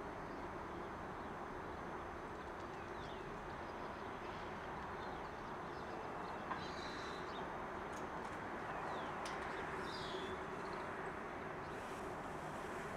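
Steady, distant traffic rumble with a faint low hum, and a few faint, brief bird chirps over it.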